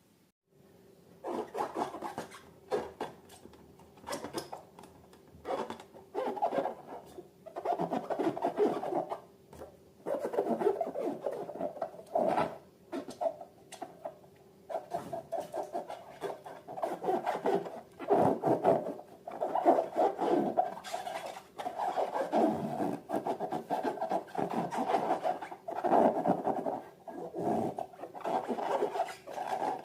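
Slime being worked by hand: irregular rubbing and scraping strokes separated by short pauses, starting about a second in.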